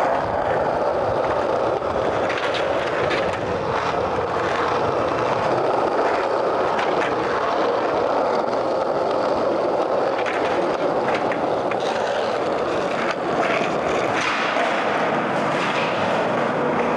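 Skateboard wheels rolling steadily over rough concrete in a parking garage, a continuous rumble with scattered small clicks.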